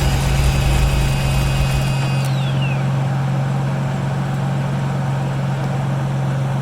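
A 1996 Chevrolet Impala's V8 engine is running, then cuts off about two seconds in with a click and a whine that falls away. A steady low hum carries on after. The engine dies from lack of fuel pressure even with a new fuel filter.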